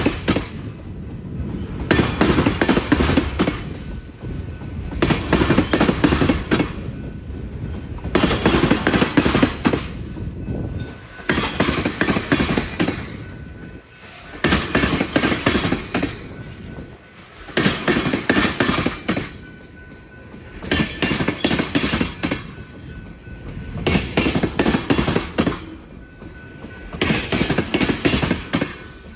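A freight train of tank cars rolls past, its wheels banging hard over the rail joints. A loud burst of clatter comes about every three seconds, with quieter rolling noise between the bursts.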